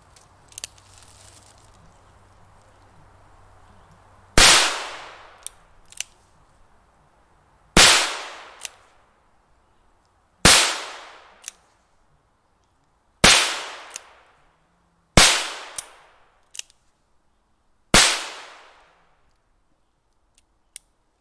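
.22 caliber pistol firing six single shots a few seconds apart, each a sharp crack with a short echoing tail and a smaller click shortly after.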